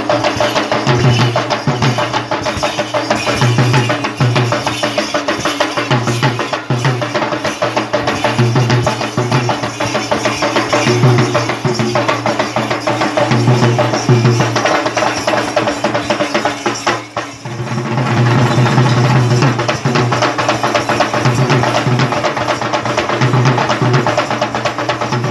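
Several Sri Lankan double-headed drums played by hand in a fast, driving Thelme dance rhythm. The drumming drops away briefly about seventeen seconds in, then starts up again.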